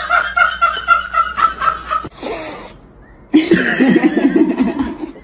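High-pitched laughter in quick rhythmic bursts for about two seconds, then a brief hiss. A little after three seconds in, a rough, throaty vocal sound follows.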